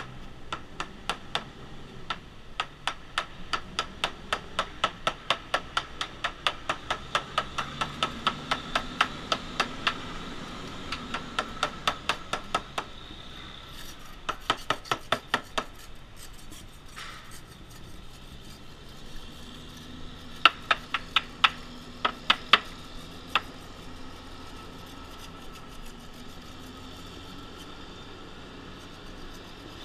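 Small hammer tapping along a boat's hull, about three light strikes a second, pausing and restarting a few times and stopping about two-thirds of the way through. This is percussion sounding of the hull, where a surveyor listens for dull, hollow-sounding spots that point to voids or delamination.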